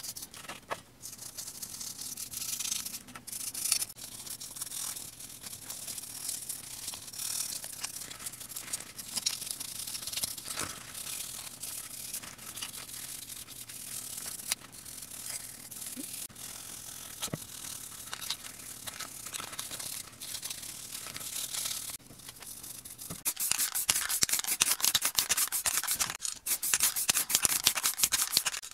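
Small bristle brush scrubbing a plastic model-car body in soapy water: a steady wet scratching with a few faint knocks. About 23 seconds in it gives way to a louder, denser scratchy rasp of rapid strokes.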